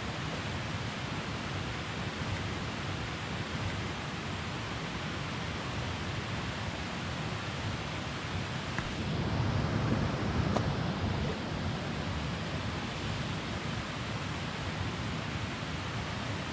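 Steady rushing outdoor background noise with no distinct events, swelling a little about nine to eleven seconds in.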